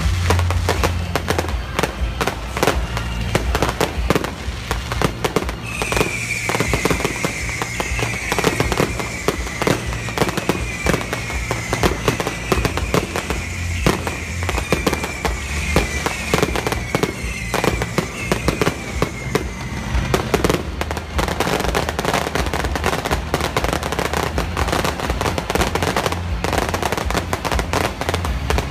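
Aerial fireworks bursting and crackling in a rapid, continuous barrage over show music. From about six to twenty seconds in, a run of short falling whistles repeats over the bangs.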